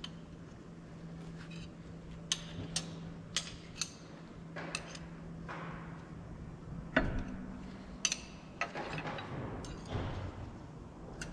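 Steel thrust washers (half-moon crescents) clinking and tapping against the crankshaft and main bearing saddles of a Volvo D13 engine block as they are worked into place with a small tool. There are a dozen or so sharp metallic clicks with short scrapes between them, the loudest about seven seconds in.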